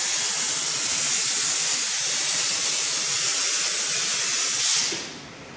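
CNC plasma torch cutting steel beam: a loud steady hiss with a thin high whistle over it, which stops about five seconds in.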